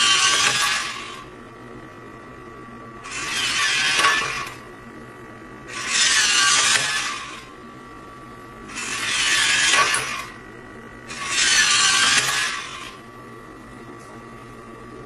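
Hobby servo motors in a 3D-printed robotic hand's forearm whirring in bursts of about a second and a half, five times, as they pull the fingers open and closed. A faint steady high whine runs between the bursts.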